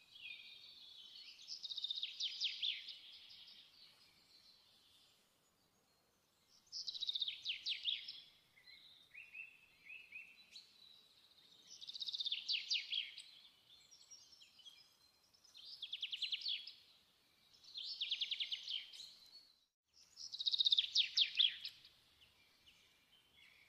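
A songbird singing: short phrases of rapid trilled notes, repeated every two to four seconds.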